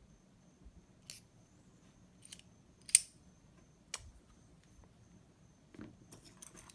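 Sharp metallic clicks of small lock parts being handled and fitted during reassembly: four separate clicks, the loudest about three seconds in, then a run of lighter clicks and rattling near the end.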